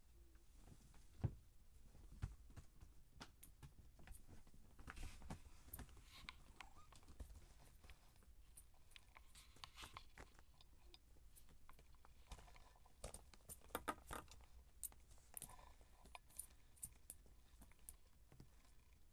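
Faint scattered taps, scuffs and clicks of Siamese kittens scrambling on carpet and batting small plastic balls about. There is one sharper knock about a second in and a quick run of clicks about two-thirds of the way through.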